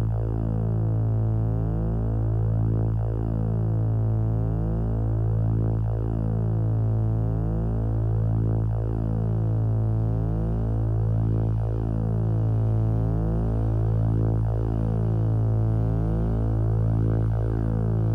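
Music: an analogue synthesizer drone, a steady deep tone under a stack of higher tones that pulse on and off rapidly and evenly.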